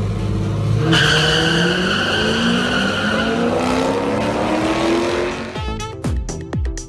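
Cars launching off the line at a drag strip, their engines revving up steadily as they accelerate, with a squeal of tires starting about a second in. Near the end this gives way to a quick run of sharp clicks and falling swooshes.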